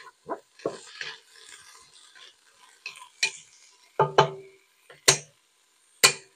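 Wooden spoon stirring onions, bell peppers, garlic and ginger in a stainless steel pot, scraping and knocking sharply against the pot several times, over a faint sizzle.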